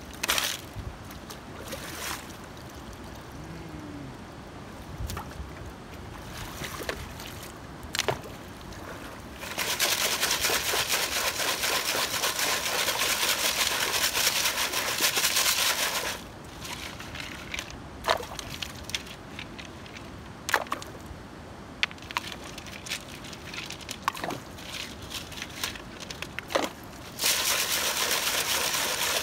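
River gravel being sifted by hand through a classifier sieve over a bucket of water. Water sloshes and stones rattle in a long loud spell of about six seconds midway and again near the end, with single stone clicks in between.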